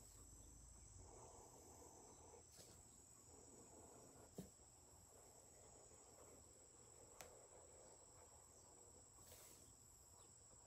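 Near silence: room tone with a faint steady high-pitched whine and a couple of faint clicks.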